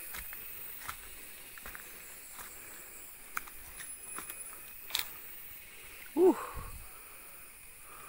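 Footsteps crunching and snapping on dry leaf litter and twigs along a forest trail, as scattered light clicks over a faint steady high whine. About six seconds in, a short loud cry falling in pitch, then a low thud.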